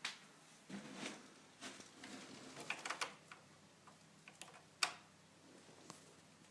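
Irregular clicks, taps and rustling, as of something being handled, with a sharper knock just before five seconds in.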